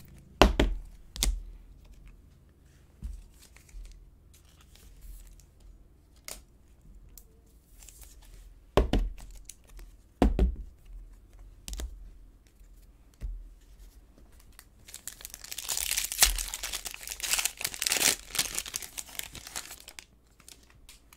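Trading cards being handled, with a few sharp knocks as they are squared up and set down on a table. Then, from about fifteen seconds in, a Panini Prizm basketball card pack's shiny wrapper is torn open and crinkled for several seconds, the loudest sound.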